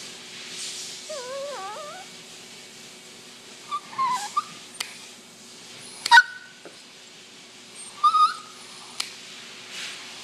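Small dog whining and whimpering in short wavering cries in protest at having her nails clipped; the loudest cry comes about six seconds in. A few sharp clicks sound between the cries.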